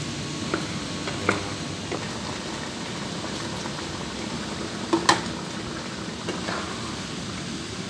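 Chicken and red curry paste cooking in a frying pan with a steady sizzle and bubble, stirred with a plastic spatula that knocks lightly against the pan a few times, most sharply twice about five seconds in.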